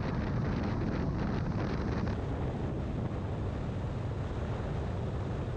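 Car driving at highway speed: a steady rumble of road and wind noise buffeting the microphone. The higher hiss eases slightly about two seconds in.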